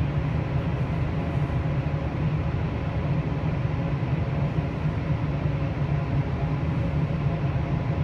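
Wind tunnel fans running at a steady speed: a constant rush of moving air over a low hum, unchanging throughout.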